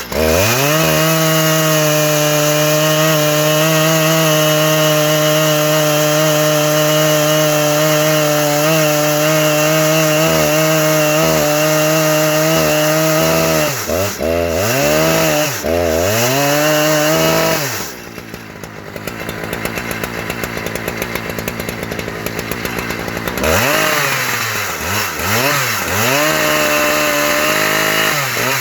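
Husqvarna 3120 XP two-stroke chainsaw in an Alaskan mill, held at full throttle at a steady pitch for about thirteen seconds, then throttle released and blipped several times, the revs rising and falling. It drops to a quieter idle for several seconds, then is revved up and down a few more times near the end.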